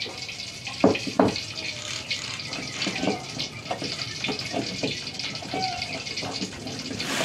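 Oil sizzling steadily in a wok on a gas stove, with scattered knocks and scrapes of kitchen utensils, including two loud sharp knocks about a second in.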